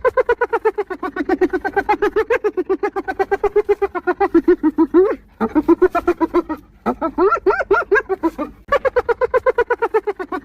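Spotted hyena giggling: fast runs of short, high, pitched whoops, about eight to ten a second, broken by brief pauses a little past halfway and again near the end.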